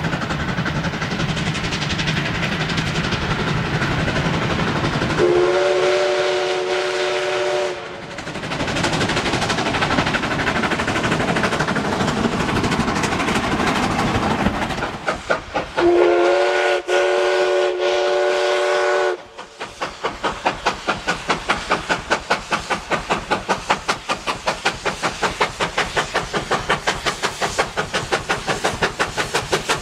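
Steam locomotive running with its train, sounding a long chord-like whistle blast about five seconds in, then two short toots and a second long, wavering blast. After that, its exhaust gives a steady, even chuff at about two to three beats a second.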